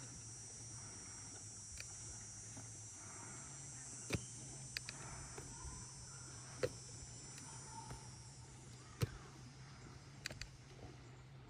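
Insects buzzing: a steady high-pitched drone that fades out about two-thirds of the way through. Under it runs a faint low hum, and a few sharp clicks are scattered through it.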